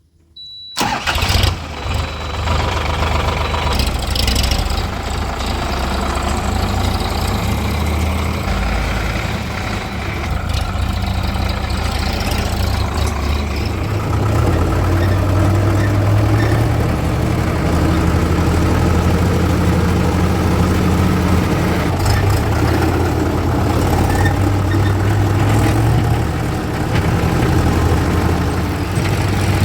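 Heavy diesel machinery engines running and working under load, the low engine note swelling and easing every few seconds. The sound cuts in abruptly about a second in.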